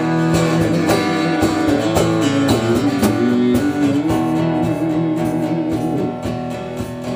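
Live band playing an instrumental passage of a rock song without vocals: amplified guitars holding and changing chords over a steady beat.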